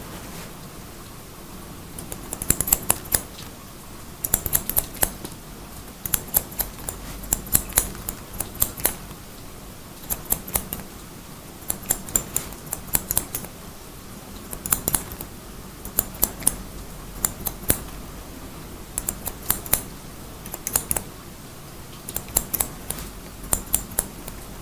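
Haircutting scissors snipping through hair in quick runs of several crisp cuts, a run every second or two, over a steady background hiss.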